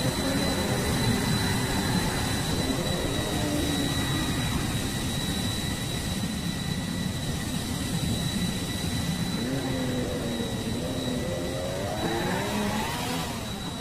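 Jet-engine sound effect from a toy airport playset: a steady whine whose pitch slowly glides up and down, rising near the end.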